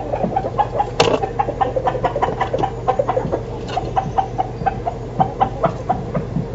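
Chickens clucking: a continuous run of short, clipped clucks, several a second, from more than one bird.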